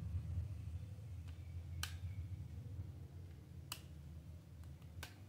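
Hard plastic toy parts clicking as they are pressed and snapped together: three sharp clicks, the first about two seconds in, one near four seconds and one near the end, with a few fainter clicks between, over a low steady hum.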